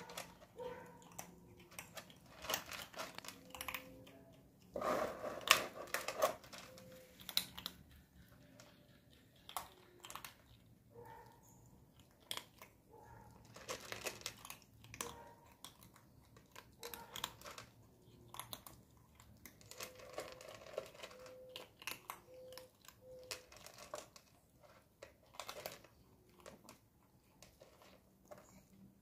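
Kittens eating: irregular small crunching and chewing clicks, with a louder burst of noise about five seconds in.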